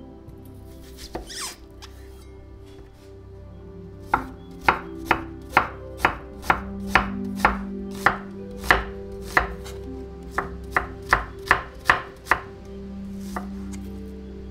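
Chef's knife slicing half an onion on an end-grain wooden cutting board: a couple of soft knocks about a second in, then a steady run of about eighteen crisp chops, roughly two a second, each blade strike knocking on the wood, stopping near the end.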